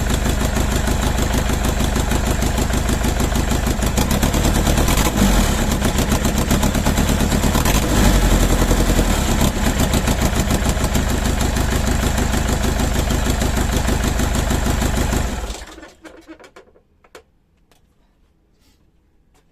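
Mercedes OM611 four-cylinder common-rail diesel running on a stand, with one bad injector. It gets louder twice in the middle, then is shut off about three-quarters of the way through and runs down, leaving a few faint ticks.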